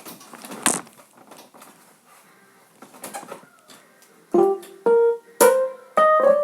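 Keyboard played in the piano voice: a run of single notes and chords struck about every half second, starting about four seconds in. Before the notes come a few light clicks and one sharper knock.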